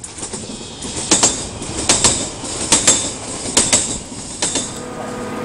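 Train wheels clattering over rail joints: five paired clacks, evenly spaced a little under a second apart, over a steady rolling rumble.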